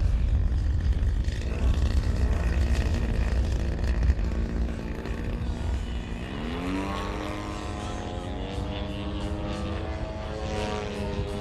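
Radio-controlled aerobatic model plane's propeller engine buzzing overhead, faint under a heavy low rumble at first. About six seconds in, the pitch sweeps sharply up as the throttle is opened, then holds steady at high power.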